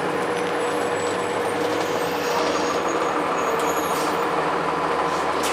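Cummins ISC diesel engine of a 2002 Blue Bird school bus running steadily, with a slight change in its low engine note about two seconds in.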